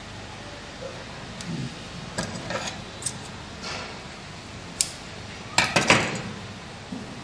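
Red PVC insulating tape being pulled off its roll and wrapped around wire joints: a run of short crackling peels and clicks, loudest about five and a half to six seconds in.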